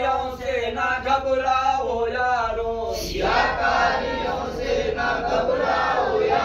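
Men's voices chanting a devotional Urdu naat together, in long held sung lines with a short break about three seconds in.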